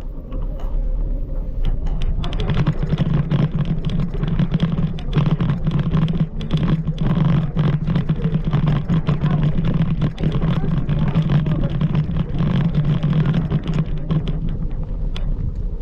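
A steady low motor hum with many rattling clicks and knocks over it, strongest from about two seconds in until near the end.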